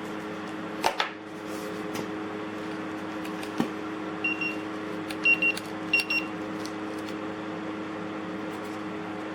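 Steady hum holding several steady low tones, with a few short high-pitched beeps between about four and six and a half seconds in and a couple of light clicks.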